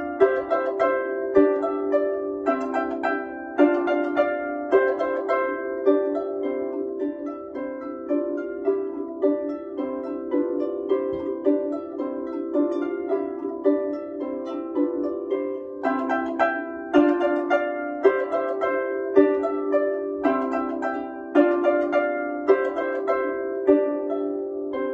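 Solo harp played by hand: plucked strings in a steady, repeating pattern of rolled chords and melody notes, each note ringing on and decaying. The playing fades near the end.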